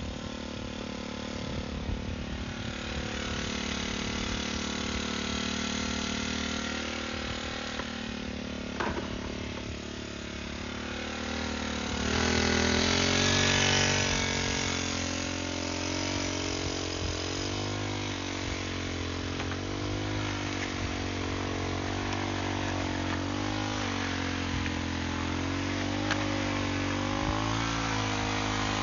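Brush cutter's small engine running under load, driving a mixing wheel through a cement and gravel mix on the ground. Its pitch wavers as the load changes, and it speeds up and gets louder about twelve seconds in.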